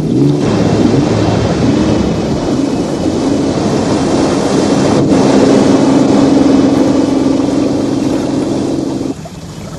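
Motor cruiser's engine running at speed, with the rush of water along its hull. The engine's pitch wavers in the first couple of seconds, then holds steady, and the sound drops off abruptly about nine seconds in.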